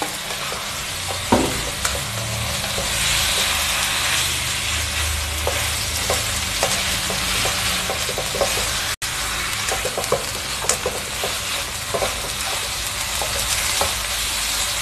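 Shrimp and spice paste sizzling in hot oil in a frying pan, stir-fried, with a spatula scraping and clicking against the pan as they are turned.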